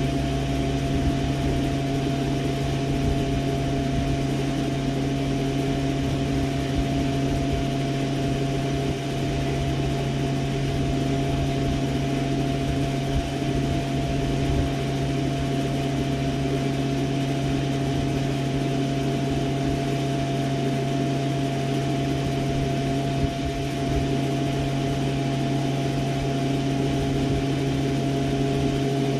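Steady mechanical hum with a few fixed pitches, from running machinery.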